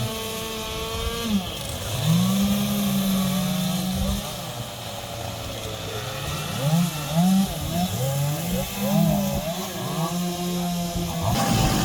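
Two-stroke chainsaw carving wood, its engine revving up and down. It holds high revs for about two seconds, drops back, then gives a string of short rises and falls in pitch, and the sound turns rougher and noisier near the end.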